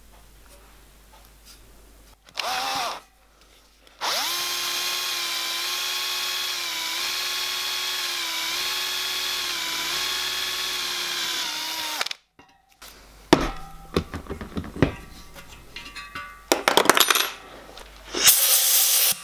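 Cordless drill drilling out a rivet hole in a copper locomotive boiler's firebox through a clamped drilling jig: a short burst, then a steady whine for about eight seconds that cuts off suddenly. Afterwards come scattered knocks and metal clatter as the jig is unclamped and taken off.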